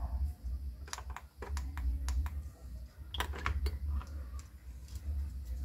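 A scatter of light clicks and taps as a pen-style cordless soldering iron is switched on with its push button and laid into its hard plastic case, over a steady low hum.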